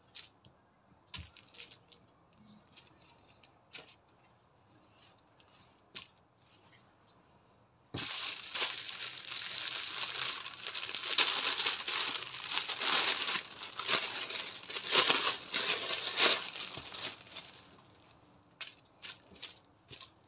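Clear plastic garment bag crinkling and rustling loudly as a folded T-shirt is worked out of it, starting suddenly about eight seconds in and lasting about nine seconds. Before and after it, only light scattered handling rustles.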